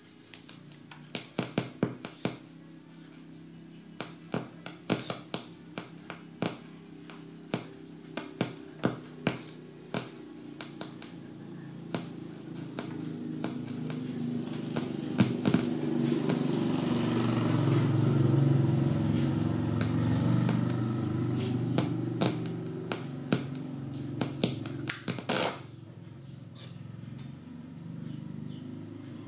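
Many sharp, irregular clicks and taps, with a low rumble that builds to a peak about halfway through and then fades, like a motor vehicle going past.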